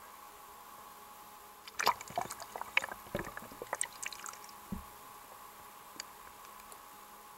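Air bubbles gurgling and crackling underwater as a diver switches over onto a semi-closed rebreather. The burst starts about two seconds in and lasts about three seconds, ends with a low thump, and has a lone click later, over a steady hiss.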